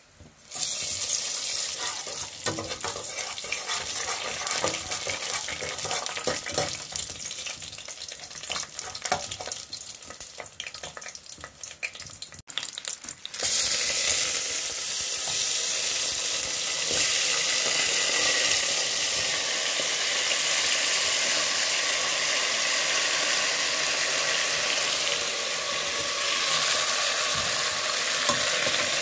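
Browned sugar with garlic, ginger and scallion sizzling and crackling in a pressure-cooker pot while a utensil stirs it. About 13 seconds in, the seasoned chicken feet go in and a louder, steady sizzle takes over.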